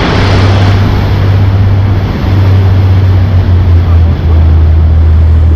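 Motorboat engine running with a steady low drone, its pitch shifting slightly a couple of times, over a loud rush of wind and water.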